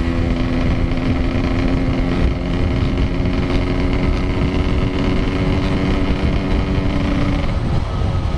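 Yamaha RX-King's 135cc two-stroke single-cylinder engine running at a steady pitch while riding, with wind and road noise on the helmet camera. The steady engine note breaks off near the end as the throttle eases.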